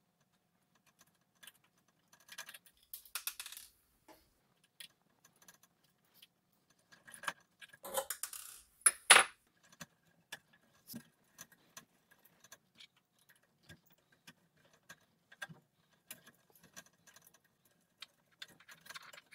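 Hands taking apart an electronic rack unit: scattered small clicks, taps and light metallic clinks as the LCD display module and the metal chassis are handled. The clicks come in two busier flurries, about 3 s in and again around 8 to 9 s, where the loudest sharp click falls; single ticks come in between.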